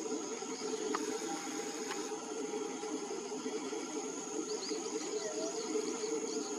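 Outdoor birdsong and insect ambience: faint, soft whistled notes of a whistling green pigeon, one held about a second in and a short sliding note near the end. They sit over a steady low drone and a steady high insect-like whine, with a few small high chirps from another bird near the end.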